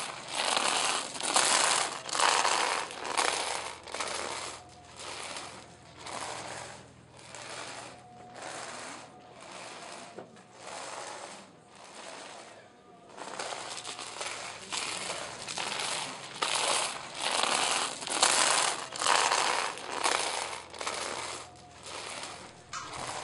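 Iron chains shackled to barefoot penitents' ankles dragging and clinking on the street paving, a metallic scrape and jingle with each slow step in a steady rhythm. It eases off for a few seconds midway, then grows louder again.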